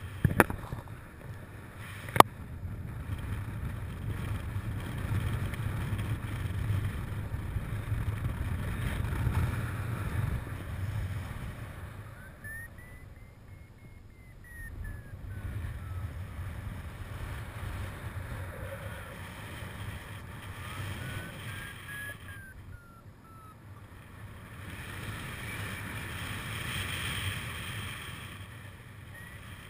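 Airflow buffeting the microphone of a camera mounted on a paraglider in flight: a steady low wind rumble. There is a sharp click about two seconds in, and a faint high whistle rises and falls twice.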